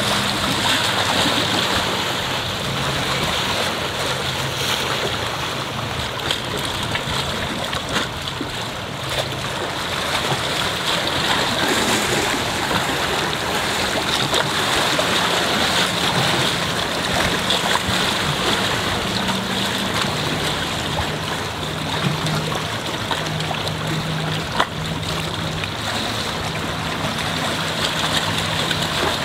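Small waves lapping and splashing against shoreline boulders, a steady wash of moving water. A faint low hum comes and goes underneath.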